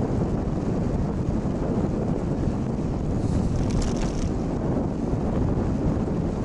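Wind buffeting the microphone of a camera on a moving bicycle: a steady low rumble, with a brief faint high scratching about four seconds in.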